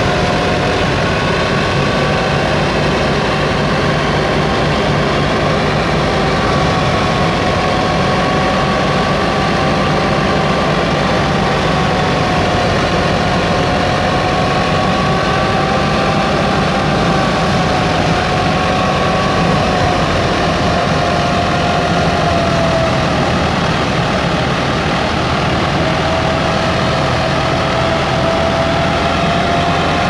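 Tractor-driven wheat thresher running steadily under load as wheat bundles are fed in, together with the Massey Ferguson 375 tractor's diesel engine that powers it. A steady whine that wavers slightly in pitch rides over the dense machine noise.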